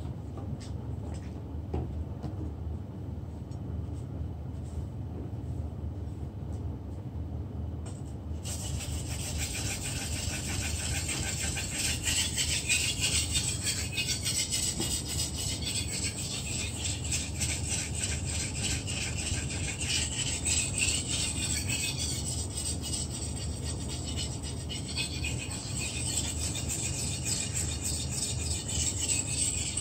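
A long steel fish-processing knife being stroked rapidly back and forth on a whetstone, a scraping rasp that starts about eight seconds in. Before that there is only a low steady hum with faint scrapes.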